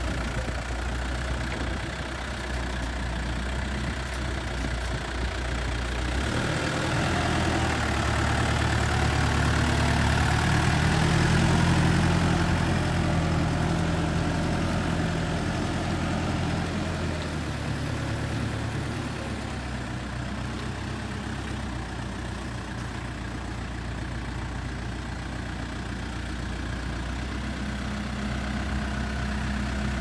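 Case Super M Series 2 backhoe loader's diesel engine running as the machine is driven. It rises in pitch and grows louder about six seconds in, is loudest around twelve seconds, then settles back to a steady lower run.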